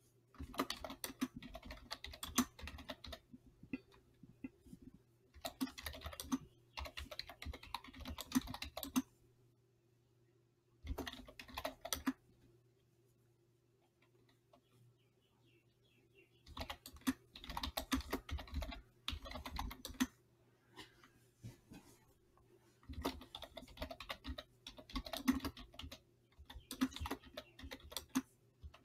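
Typing on a computer keyboard: rapid key clicks in about five bursts of one to four seconds, with pauses of a few seconds between them.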